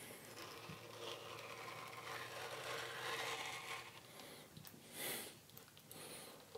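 A knife cutting and scraping along a raw aloe vera leaf: a faint, continuous scraping for about four seconds, then a short rasp about five seconds in.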